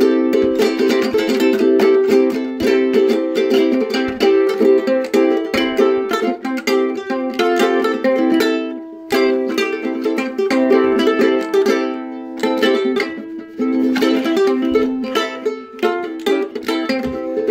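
Ukulele being played: quick plucked notes over ringing held notes, with a short break about nine seconds in before the playing resumes.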